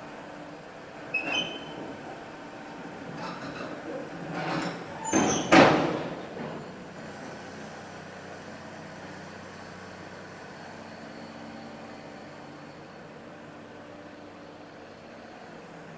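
Komatsu PC200 hydraulic excavator's diesel engine running steadily, with a metallic clank about a second in and the bucket working, building to a loud crash about five and a half seconds in before the engine hum carries on alone.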